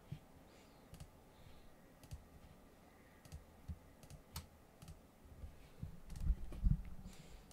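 Faint, scattered single clicks of a computer mouse and keyboard, about one every second or so. Near the end come a few soft low thumps.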